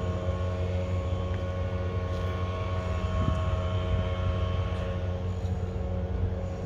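A steady mechanical drone: a constant low rumble with several held tones over it, without change.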